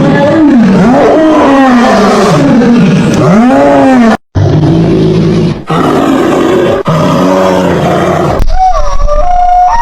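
Loud animal calls from several animals in turn: first a string of rising-and-falling cries, then after a short break a steadier low call, and near the end a higher gliding whistle-like call.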